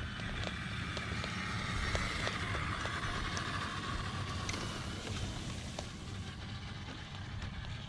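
1/10-scale electric RC crawler driving over rock, its 5-slot brushed motor and drivetrain whining steadily while the tyres make small scattered clicks on the grit, over a low rumble.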